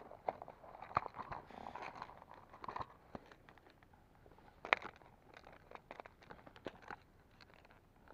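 Faint clicks and rustles of a clear plastic tackle box and soft frog lures being handled, with one sharper click about four and a half seconds in.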